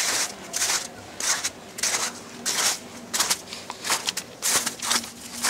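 Footsteps crunching through trampled snow at a steady walking pace, about one step every two-thirds of a second.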